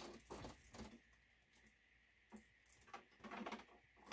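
Near silence with a few faint clicks and knocks from a flat-screen TV and its metal wall-mount brackets being handled.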